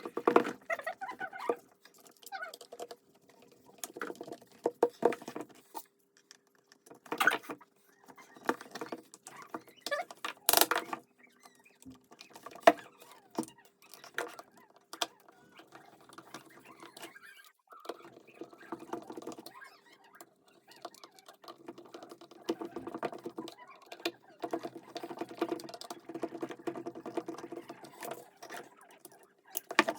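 Irregular clicks, taps and short rattles of small parts and tools being handled during hand repair work, with a few sharper knocks and a faint steady hum underneath.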